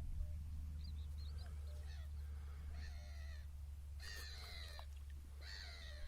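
An animal calls three times, each call harsh and drawn out and about half a second long, with a few faint high chirps before them, over a steady low rumble.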